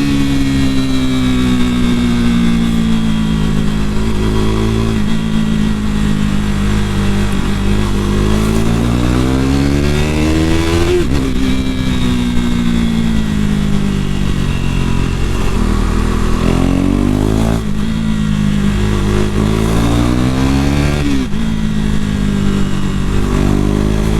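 KTM RC390 single-cylinder engine running through an aftermarket fake Akrapovic slip-on exhaust, its pitch rising and falling with the throttle. The revs climb and drop sharply twice, about eleven seconds in and again near the end.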